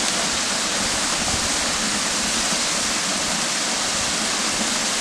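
A waterfall's falling water rushing steadily, an even roar of water with no breaks.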